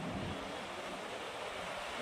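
Steady wash of small waves breaking on a flat sand beach, with wind rumbling on the microphone near the start.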